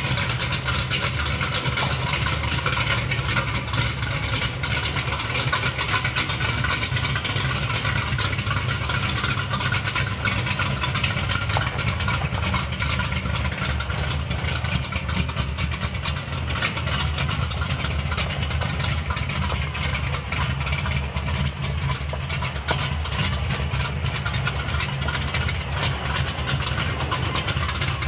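1971 Chevrolet Chevelle's V8 engine, fitted with a new Edelbrock Performer intake and Edelbrock carburetor, running steadily.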